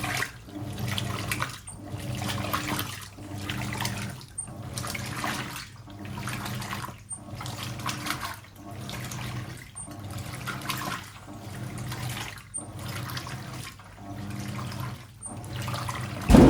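Hoover 800RL top-loading washing machine agitating in its rinse, water sloshing and splashing over a steady motor hum, one agitator stroke about every 1.3 s with a short pause between strokes. A loud knock near the end.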